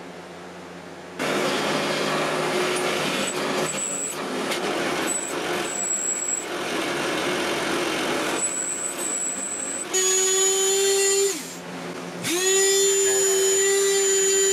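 Drill press boring into a small metal part, with a steady grinding cutting noise. About ten seconds in the cutting stops and the motor hums freely, winds down briefly, then spins back up and runs with a steady hum.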